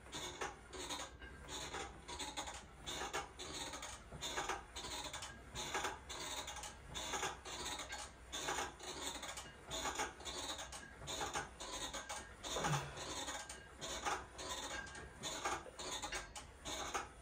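Plate-loaded seated leg curl machine worked through repetitions: its moving parts click and rub with each curl, about once a second, over a low steady hum.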